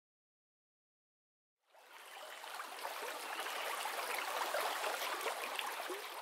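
Stream water rushing and splashing, starting about a second and a half in and swelling to a steady level.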